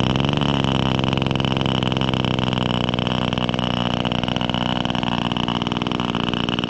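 O.S. Max 35 R/C model glow engine turning a 10 x 6 inch propeller, running at a steady low-throttle idle with an even pitch.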